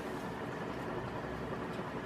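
Dayton Lasko 56-inch industrial ceiling fan running steadily on its third speed: an even rush of moving air with a faint hum.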